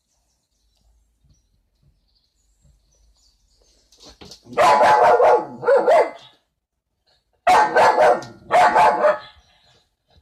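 A dog barking in runs of quick, loud barks that begin about four seconds in, at its own reflection in a mirror, which frightens it.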